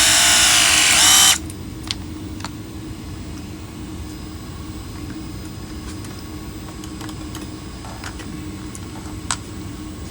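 Battery-powered pipe press tool's motor whining as it crimps a press fitting onto copper pipe. Its pitch falls under load until it cuts off suddenly about a second in, the press complete. Afterwards a low steady hum with a few light clicks.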